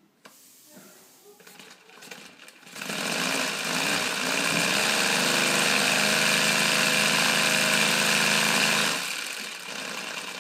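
3D-printed three-cylinder radial compressed-air engine with a propeller, starting up about three seconds in as air is let in. It picks up speed and then runs steadily. About nine seconds in it drops to a quieter, lower-speed run.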